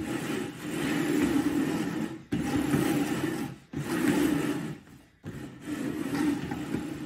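Two upturned plastic bowls being slid around on a tabletop, making a rough scraping in several stretches of a second or two, with brief breaks between them.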